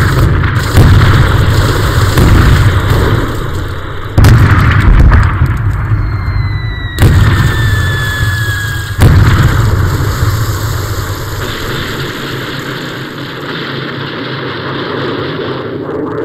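Battle-scene explosions: four heavy blasts two to four seconds apart, each trailing a low rumble, with a thin falling whistle between the third and fourth. The rumble settles lower in the last few seconds.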